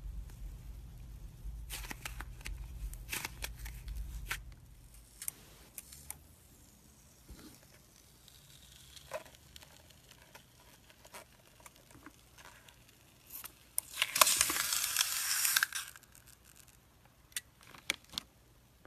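Fingers pressing and squishing slime and a soft stress ball, making scattered crackles and sticky clicks. About 14 seconds in comes a louder tearing sound lasting about two seconds.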